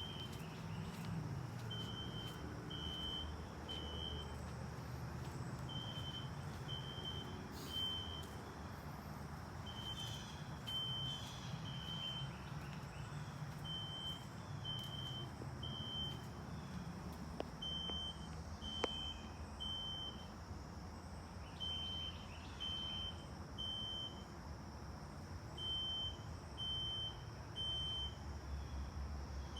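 A tablet speaker plays a recorded System Sensor SpectrAlert Classic fire alarm horn in the temporal-three evacuation pattern: groups of three short, high beeps, a new group about every four seconds. A steady low rumble runs underneath.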